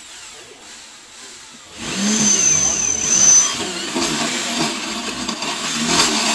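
Handheld electric drill running, starting about two seconds in, its motor pitch rising and falling as it drills into the incubator's metal frame, with a high whine for about a second and a half.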